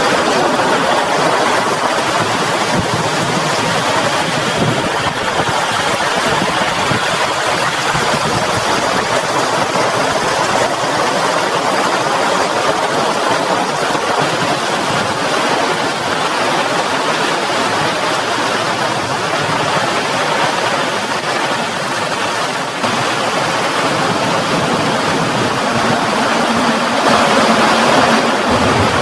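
Heavy rain pouring, a dense, steady hiss of falling water.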